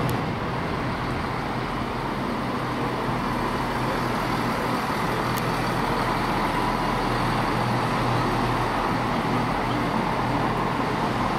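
ScotRail Class 170 Turbostar diesel multiple unit running slowly through the station: a steady engine rumble with a low hum and a faint whine that comes and goes.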